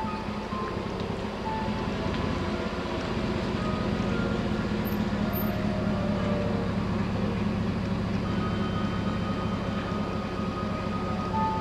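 Slow, quiet chime-like music playing from the cemetery's Garden of Chimes speakers, single held notes at varying pitches over a steady low hum.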